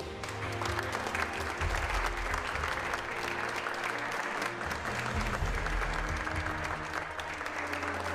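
A crowd of guests applauding steadily, with background music running underneath.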